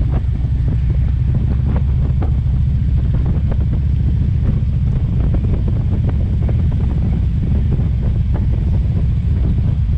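Steady low rumble of wind buffeting the microphone over the road noise of a moving car.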